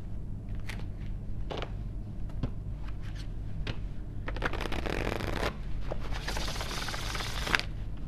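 Tarot cards being shuffled by hand: scattered soft taps and slides, then two longer shuffling runs, about four and six seconds in.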